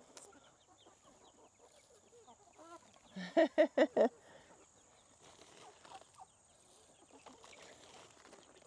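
A flock of chickens clucking softly while foraging. About three seconds in, one bird gives a quick run of about five loud clucks.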